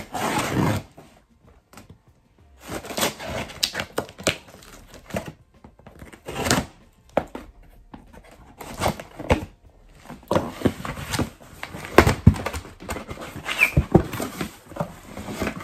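Scissors slicing through the packing tape on a cardboard box, then the irregular rustling, scraping and knocking of cardboard flaps and paper packing being pulled open and handled.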